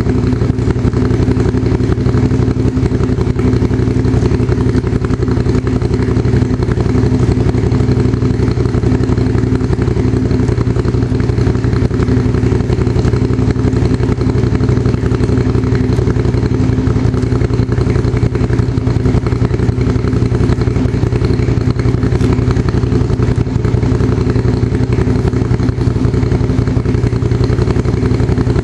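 Motorcycle engine idling steadily in first gear, turning the drive chain and rear wheel.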